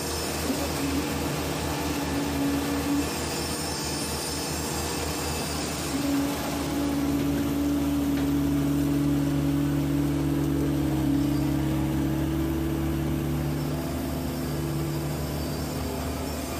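PC120 excavator's diesel engine and hydraulics running steadily, heard from inside the cab. About six seconds in the engine note steps up and holds higher as the filled bucket is lifted and swung.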